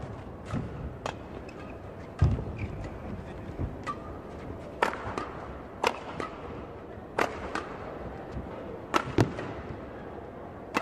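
Badminton rackets striking a shuttlecock in a fast men's doubles rally: sharp cracks about once a second, with a heavier thud about two seconds in, over a low arena hum.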